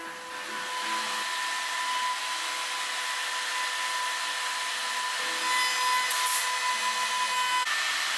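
Steady hiss with a high whine from workshop machinery running, swelling about half a second in.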